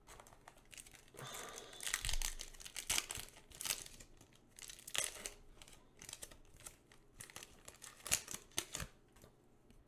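A Yu-Gi-Oh booster pack's foil wrapper crinkling and crackling in the hands as it is torn open, in irregular crackles.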